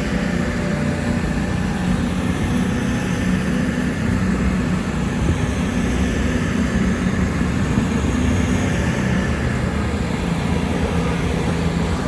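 Class 221 Super Voyager diesel-electric trains, two units coupled, departing under power, their underfloor diesel engines running in a steady low hum as the cars pass.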